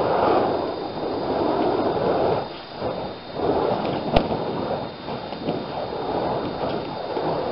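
Burning wicks of a spinning fire hoop whooshing through the air in swelling and fading waves, with a single sharp click about four seconds in.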